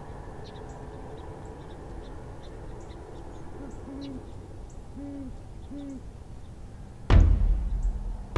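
Great horned owl hooting: three short, deep hoots about a second apart. Near the end a loud, heavy drum hit starts drum music.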